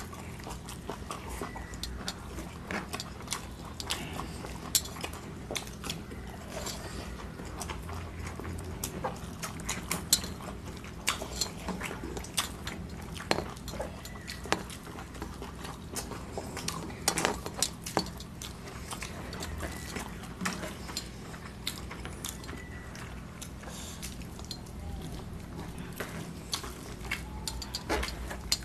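Two people eating rice and curry with their hands from metal plates: chewing and mouth sounds, with many small, sharp clicks of fingers and food against the plates, over a low steady hum.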